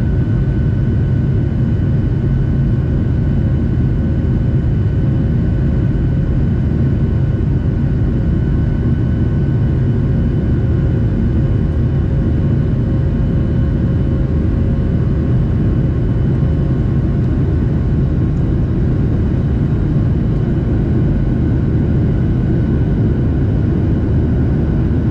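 Inside the cabin of a Boeing 737-700 climbing after takeoff: its CFM56-7B turbofan engines and the rushing airflow make a loud, steady rumble, with a faint steady whine over it.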